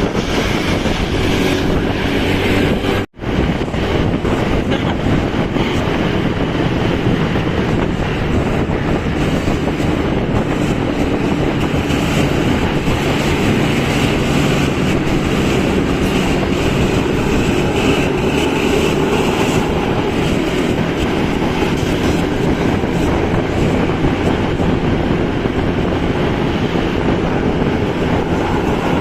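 Steady rumble of a moving vehicle, broken once by a sudden brief drop-out about three seconds in.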